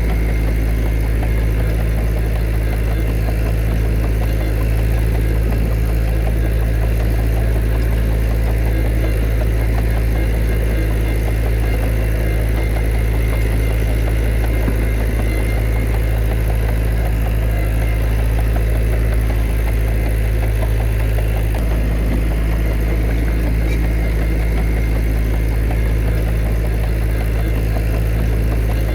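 Heavy diesel engine of an earthmoving machine running steadily at an even pitch, with no revving or pauses.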